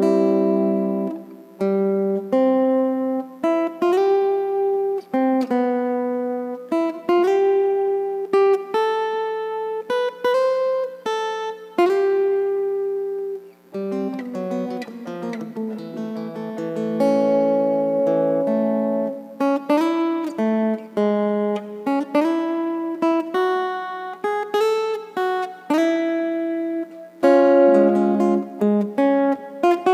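Acoustic guitar played as a lead solo: a melody of single picked notes, some held and ringing, with a passage of several notes sounding together about halfway through, over a steady low tone.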